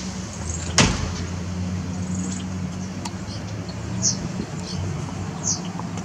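Vehicle engine idling with a steady low hum. A single sharp click comes about a second in, and two short high chirps come later.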